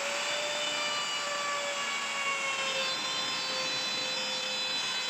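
An electric power tool's motor running at full speed, with a steady high whine over a rushing noise; the whine sags slightly in pitch.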